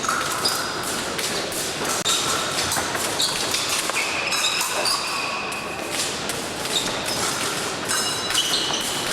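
Sounds of an épée bout: a run of thuds and taps from the fencers' footwork and blades, with several short high-pitched tones scattered through.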